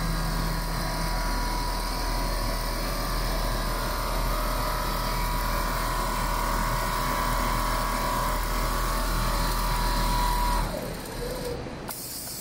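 Computerized flat quilting machine running, its sewing head stitching through a quilt with a steady mechanical whir and a steady whine. The noise drops off noticeably about eleven seconds in.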